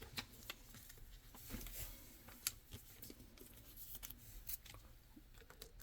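Faint, scattered light clicks and scratchy rustles of trading cards being handled and slid into plastic card sleeves.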